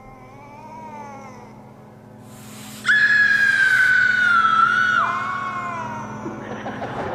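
Horror sound effect: a faint wavering howl, then a short hiss and a loud, high scream about three seconds in. The scream holds nearly level for two seconds, then drops in pitch and trails off. A rough, noisy rumble comes in near the end.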